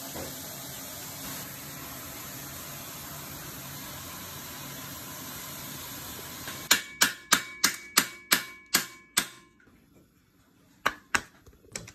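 About ten sharp metal-on-metal knocks in quick succession, each with a short ring, as the pit bike's steel fork triple clamp is worked onto the steering stem; two lighter clicks follow near the end. Before the knocks there is only a steady hiss.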